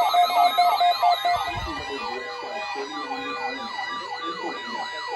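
Several weather radio receivers sounding their electronic alert sirens at once, set off by the weekly test: overlapping, rapidly repeating up-and-down wails over steady tones. About a second in, the loudest steady tone stops with a low thump, and the rest carry on more quietly.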